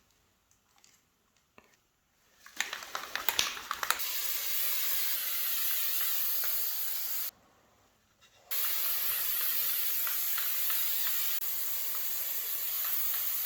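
Aerosol spray can spraying in two long, steady hisses, about three and five seconds long with a short pause between. A short rattle comes just before the first spray.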